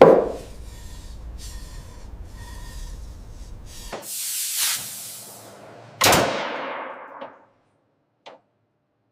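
Factory machinery: a loud clank over a steady low hum, then a hiss that swells, and a second sharp bang with a hiss that trails off and stops, leaving near silence.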